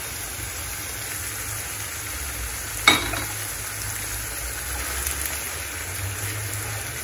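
Browned beef mince and onion sizzling steadily in a frying pan as tomato purée is poured in and a spatula stirs it through. One sharp clack comes about three seconds in.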